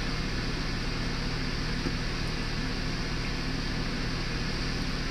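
Steady low mechanical hum with a faint hiss from a running kitchen appliance.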